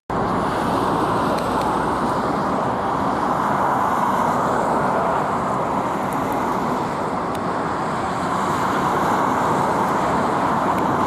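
Steady road noise of a moving car: an even rush of tyre and wind noise with no clear engine note, starting abruptly at a cut.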